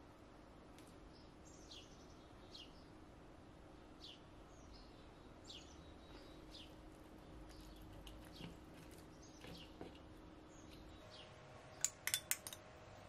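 Faint, short downward-sweeping bird chirps, repeating about once a second, over a low steady hum. Near the end come a few sharp clinks of a metal spoon against a small bowl of dressing.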